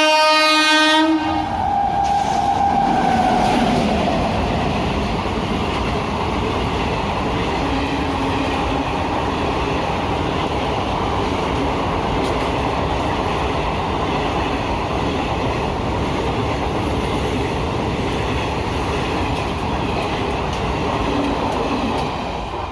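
A WAG9 electric locomotive's horn sounding a loud chord that stops about a second in, followed by a higher horn tone sliding down in pitch. Then the steady rumble and rattle of the train's wheels on the rails as it runs past, fading slightly near the end.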